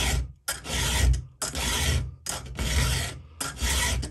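Round chainsaw file rasping across a steel chain cutter tooth in repeated level strokes, about one a second with short pauses between. The strokes are reshaping a damaged cutter to a C-shaped profile.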